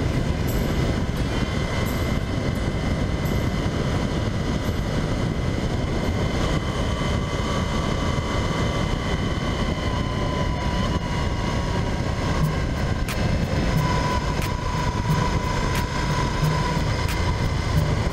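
Honda Varadero XL1000V's V-twin engine running steadily at riding speed, mixed with the steady rush of wind.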